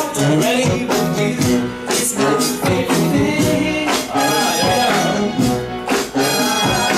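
Loud dance music with a steady beat, about two beats a second.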